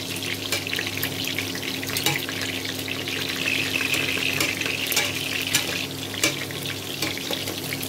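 Pork belly cubes frying in hot oil in a stainless steel pot: steady sizzling with constant fine popping and spattering, as metal tongs turn the pieces. The pork is being fried only to golden, not crisp.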